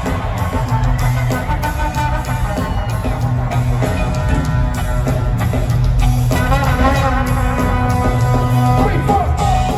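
A rock band playing live, with guitar over bass and drums, loud and steady.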